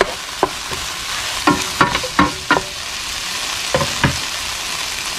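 Chopped poblano chiles, onion and tomato sizzling steadily as they fry in a nonstick pan, stirred with a wooden spoon that knocks against the pan several times in the first four seconds.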